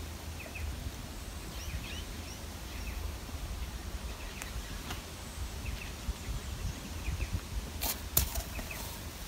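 Outdoor ambience: a steady low rumble with faint, scattered bird chirps, and two sharp clicks about eight seconds in.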